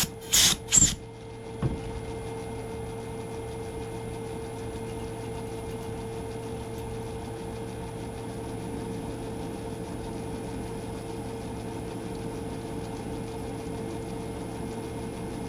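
Myford lathe running steadily with a constant hum, its spindle turning. There are three short, sharp clatters in the first second and one more just under two seconds in.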